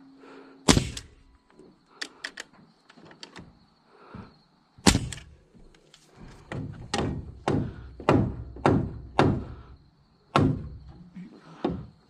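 Ridgid framing nailer driving nails into wooden roof trusses, with sharp, separate shots. There is one shot about a second in and another near five seconds, then a quick run of about six shots roughly every half second, and two more near the end.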